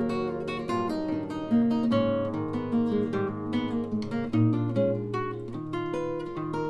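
Acoustic guitar playing, a steady run of plucked notes and chords with a strum here and there.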